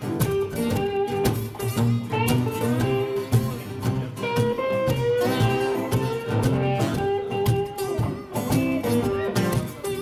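Live acoustic blues band playing an instrumental break: strummed and picked acoustic guitars with a bending lead guitar line over a cajon beat, with no singing.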